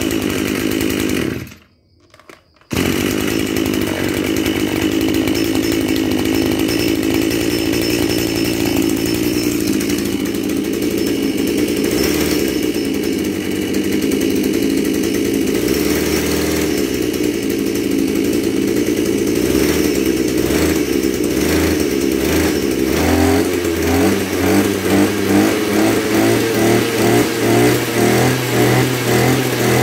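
The Maruyama KC230RS-1 brush cutter's 23cc two-stroke engine, just started on its recoil starter, goes quiet for about a second near the start, then idles steadily. Over the last several seconds it revs up and down in quick repeated blips of the throttle.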